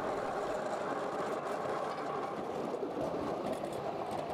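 A 7¼-inch gauge miniature train running along its track, heard from the passenger car just behind the locomotive: a steady running noise of wheels on rail and drive.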